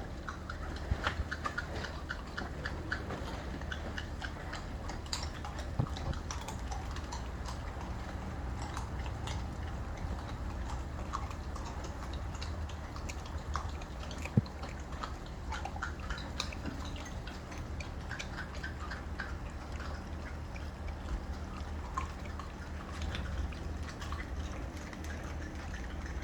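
Rhodesian Ridgeback puppies chewing raw chicken legs, with scattered wet clicks and crunches of meat and bone over a steady low hum.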